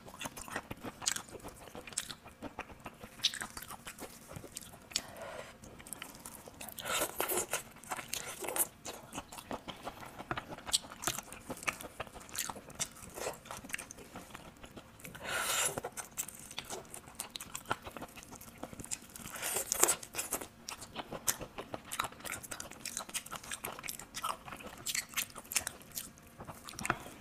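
A person eating raw marinated shrimp: wet chewing and biting with crunching, a steady run of small clicks and a few louder bursts of bites.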